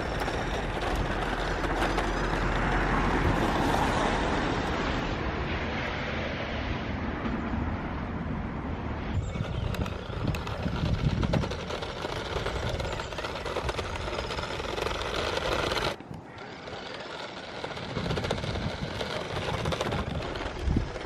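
Small remote-control toy car driving across rough tarmac: a steady rushing of its electric motor and tyres, which drops out abruptly about 16 seconds in and starts again shortly after.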